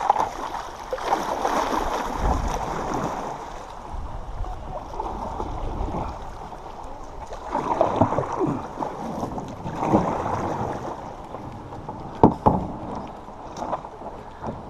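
Water splashing and sloshing around a canoe on a creek, with a few louder splashes about 8, 10 and 12 seconds in.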